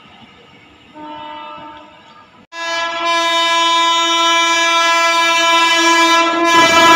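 A faint locomotive horn sounds for about a second. Then a loud, long blast on the air horn of an approaching WAP-7 electric locomotive holds one steady chord, and the rumble of the train rises under it near the end as the express runs in at speed.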